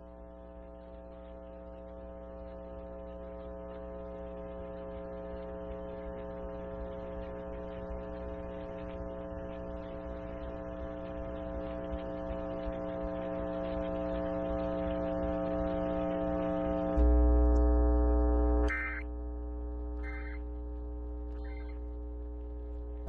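A steady buzzing drone with many overtones, slowly growing louder. About seventeen seconds in, a loud deep hum comes in for under two seconds, then the level drops back, with a few short high chirps after it.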